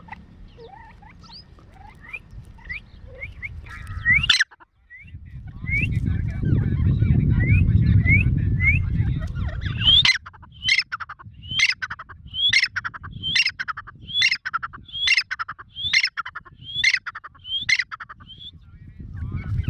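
Grey francolin (Irani teetar) calling: faint rising whistled notes at first, then about ten seconds in a loud, even run of about a dozen sharp upward-sweeping notes, roughly one and a half a second. A low rumbling noise sits under the middle part.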